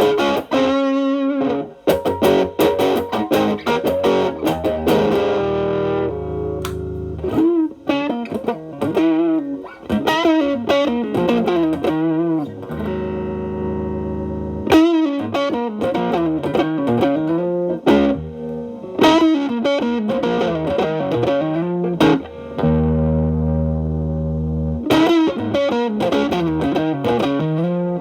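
Electric guitar, a Telecaster with single-coil pickups, played through an MXR Distortion+ set low and stacked with a Boss SD-1 used as a boost, into a Marshall Valvestate on its clean channel, giving a mildly overdriven tone. It plays improvised lead lines with string bends and vibrato, broken by a few held chords.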